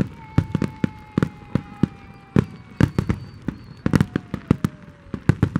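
Aerial fireworks display with shells bursting in quick, irregular bangs and crackles, several a second. Behind them a thin whistle-like tone glides slowly down in pitch.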